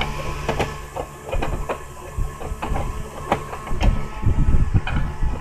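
Plastic casing of a Panasonic radio cassette player knocking and clattering as it is handled and turned over on a workbench, with heavier thumps about four seconds in, over a steady low hum.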